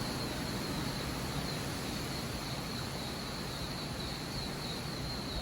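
Outdoor ambience: insects chirping in a steady, high, finely pulsing trill over a constant background hiss. It cuts off abruptly at the end.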